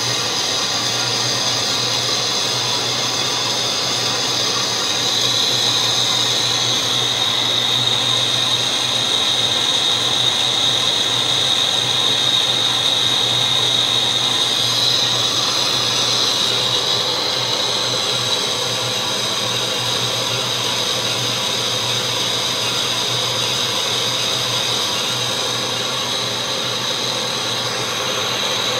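Large metal lathe running and taking the final cut on a rough-cast piston for a 1912 Rumely 15-30: a steady machining noise with a low hum and a high whine.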